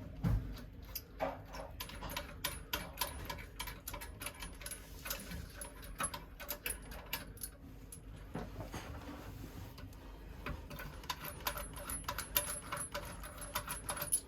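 Runs of quick small clicks and taps from hand tools at work, in three spells.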